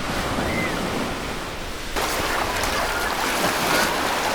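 Ocean surf washing onto a beach, a steady rushing noise that grows brighter and hissier about two seconds in as a wave comes in. A faint short high chirp sounds about half a second in.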